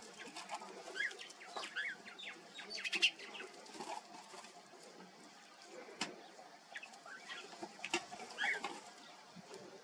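Short bird chirps now and then, with a busier patch of calls about three seconds in and again near the end. Scattered sharp clicks and scratches of gravel and dry twigs come from two black lizards wrestling on the ground.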